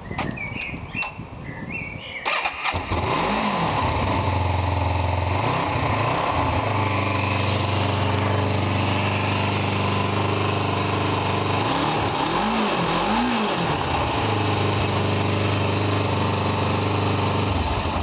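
Kawasaki GPZ 500S's parallel-twin engine started about two and a half seconds in after a few clicks, then idling steadily with several short throttle blips before it is switched off at the end.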